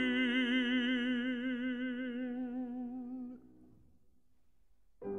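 A classical baritone voice holds one long sung note with a slow, even vibrato, fading out about three and a half seconds in. After a brief pause, a grand piano comes back in with a chord near the end.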